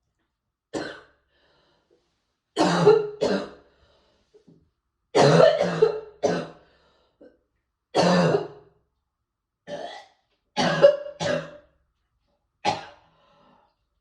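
A person coughing repeatedly: about ten short, sharp coughs, several of them in quick pairs, a second or two apart with silence between.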